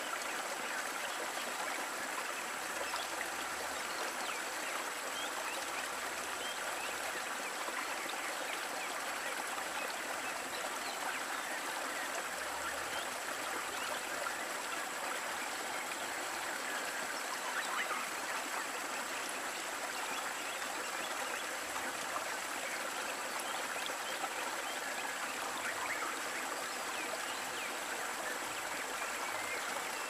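Water of a shallow, rocky stream running over stones and pebbles, a steady, even rush.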